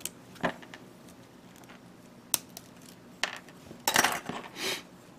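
Small hard plastic parts of a Bandai G-Frame Gundam figure being handled: a few sharp clicks spread over the first three seconds, then a short burst of clattering near the end.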